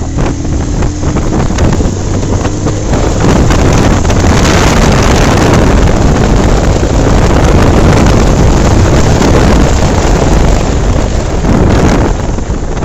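Bajaj Pulsar 220 motorcycle on a test ride, with heavy wind noise on the microphone over the engine. The noise grows louder about three seconds in and eases off near the end.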